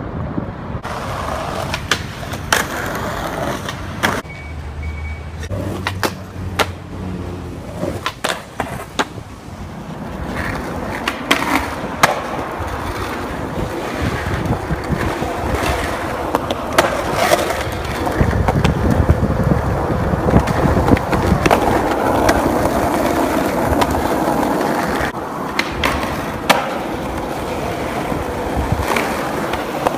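Skateboard wheels rolling over pavement, with sharp clacks and knocks of the board hitting the ground scattered through. The rolling gets louder about a third of the way in.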